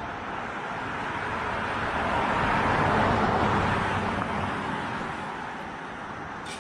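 A car driving past on the road, its sound swelling to the loudest about three seconds in and then fading away.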